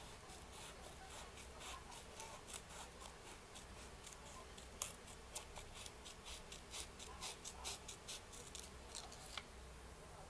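Scissors snipping through folded red craft paper, faint short cuts in a quick run of about three or four a second that stops near the end.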